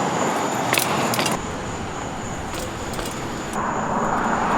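BMX bike riding on concrete: tyres rolling, with metallic jangling from the bike and a few sharp clicks. The sound changes abruptly twice.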